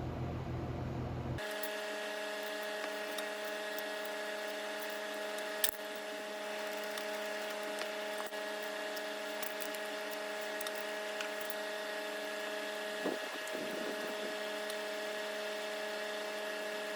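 A steady machine hum holding several fixed tones, with scattered light clicks and a sharper knock about six seconds in and again about thirteen seconds in.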